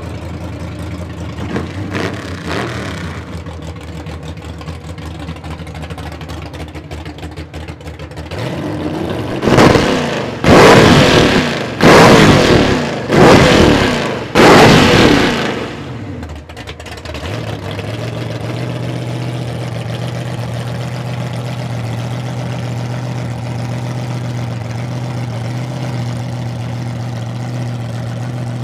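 Chevrolet C10 pickup's engine idling, then revved hard five times in quick succession, each rev climbing and falling back. It then settles into a steady idle.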